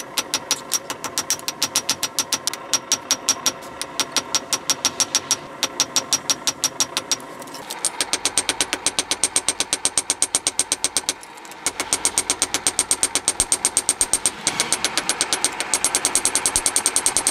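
Hand hammer striking a red-hot bar of damascus steel on an anvil in rapid, even blows, several a second, with the anvil ringing between strikes: the bar being forged out into a small knife blade. The hammering pauses briefly a little after seven seconds in and again around eleven and a half seconds in.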